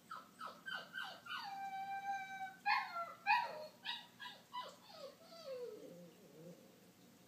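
Cocker spaniel puppy whining and crying, alone in his crate: a string of short falling whines, one long held whine, then two louder cries about three seconds in. More falling whines follow, sinking lower and fading near the end.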